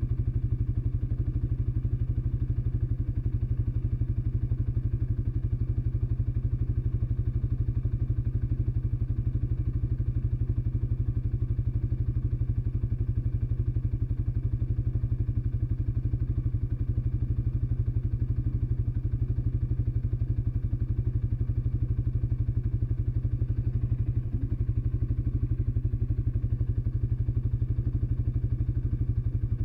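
ATV engine idling steadily, an even low pulsing with no revving.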